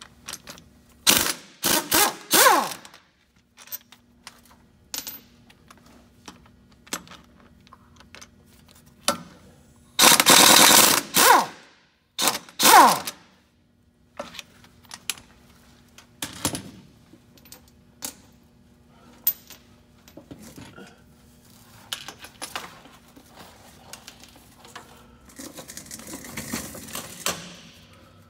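Half-inch impact wrench hammering the U-joint bolts loose on a truck's power divider input yoke. Several short bursts come about a second in, then a longer, louder burst near the middle and another short one just after. Small clicks and knocks of tools and parts fall in between.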